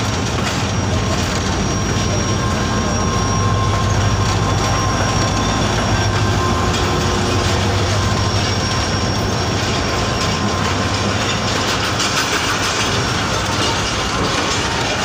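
Passenger train rolling slowly into a station, heard from the carriage door: a steady rumble of wheels on the rails with thin, high-pitched wheel squeal. A deep hum swells a couple of seconds in and eases off after about ten seconds.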